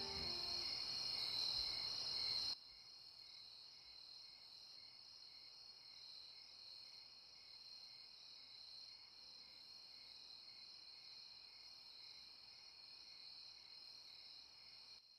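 Crickets trilling at night: a steady high trill with a regular pulsing chirp under it. About two and a half seconds in it drops suddenly to a faint level and carries on faintly.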